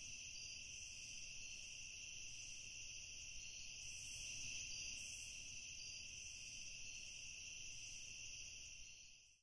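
Crickets chirping steadily in a night-time chorus, fading out near the end.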